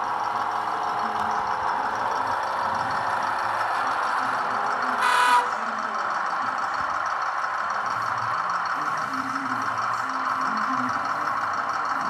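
Model train sound decoder playing a diesel engine running steadily through its small speaker, with one short horn toot a little after five seconds in.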